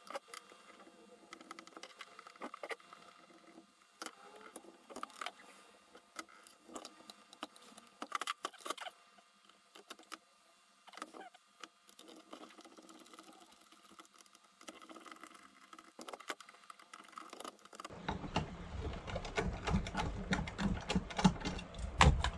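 Hand disassembly of a Bosch electric planer: scattered clicks and knocks of plastic and metal parts being unscrewed, lifted off and set down on a wooden bench, then a screwdriver working at the screws of the front base. The handling noise gets louder and busier over the last few seconds.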